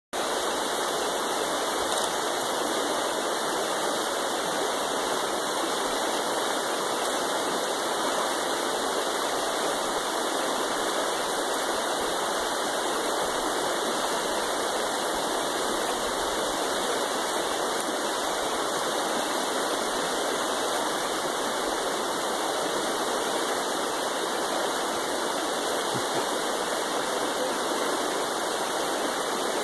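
Shallow, fast river running over rocks in riffles: a steady rush of water.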